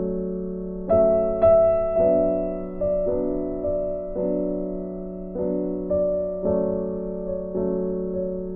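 Background piano music, slow, with a new note or chord struck about once a second and each dying away.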